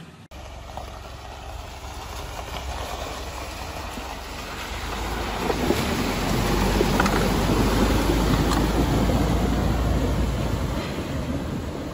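An SUV fording a flooded creek, water rushing and splashing around its wheels and body with the engine running low beneath. The sound builds over the first several seconds as the vehicle pushes into the deeper water.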